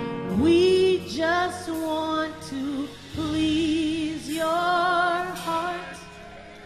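A woman sings a slow gospel worship phrase into a microphone with vibrato on the held notes, over steady held accompaniment chords. The singing stops about six seconds in, leaving the soft backing.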